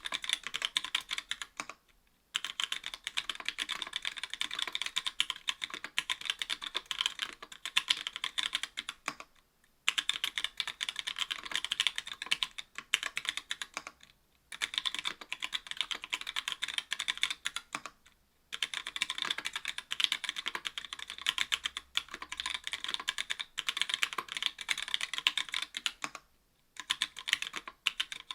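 Typing on an Octagon V3 mechanical keyboard with stock Gateron Yellow linear switches, an aluminium plate and GMK keycaps: a fast run of key clacks that stops briefly five times.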